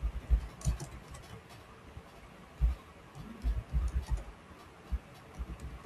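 Typing on a computer keyboard: irregular keystrokes in short runs with brief pauses between them.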